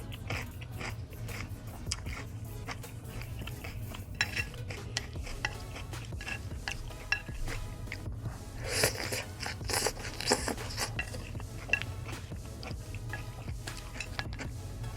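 Close-miked eating sounds: clinks against a dish and crunching bites of pita and salad, with a cluster of louder crunches in the middle.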